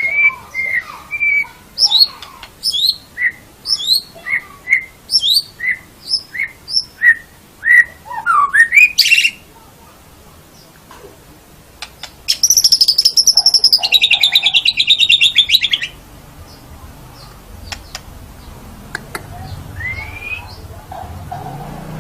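White-rumped shama singing: a run of clear whistled notes about two a second, ending in a quick flourish, then after a pause a fast rattling trill that drops in pitch over about three seconds.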